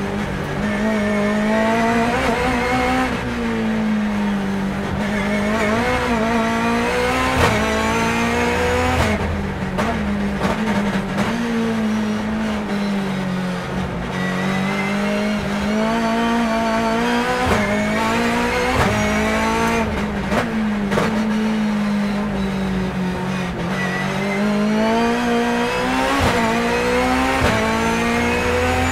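Turbocharged BMW S14B20 two-litre four-cylinder engine of a race car heard from inside the cockpit, driven hard, repeatedly rising and falling in pitch as it goes up and down through the gears, with short sharp cracks at several points.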